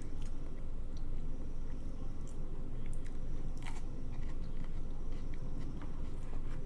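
A person chewing and biting food, with scattered light clicks, over a steady low background hum.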